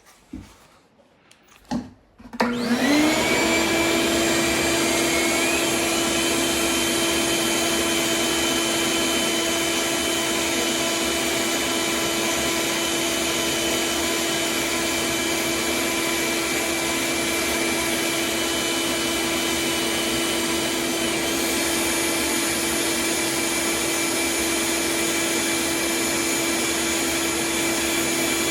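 Power sander with vacuum dust extraction switching on about two seconds in, spinning up, then running steadily as it sands down a cured resin fill coat. A few of its tones shift slightly about three-quarters of the way through.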